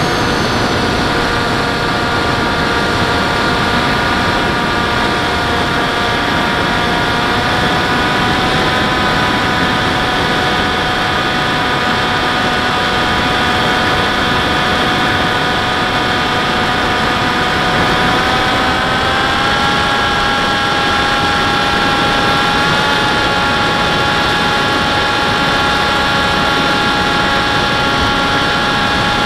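Model airplane motor and propeller running steadily, picked up by the onboard camera, as a whine of several tones over a constant rushing noise. The whine steps up slightly in pitch about two-thirds of the way through.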